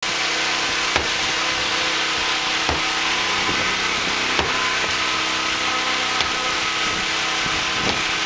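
Five hard knocks about every second and a half to two seconds as a long-handled tool strikes a soot-blackened brick fireplace. Behind them runs a steady, loud machine drone and hiss.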